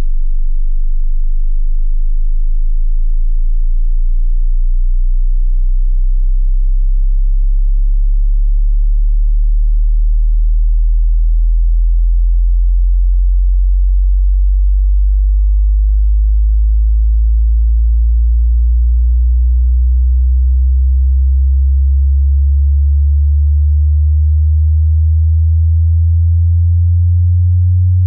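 Very low, loud sine tone climbing slowly and steadily in pitch: a speaker water-ejection tone, played to vibrate water out of a wet phone speaker or earphone so the muffled, too-quiet sound clears up.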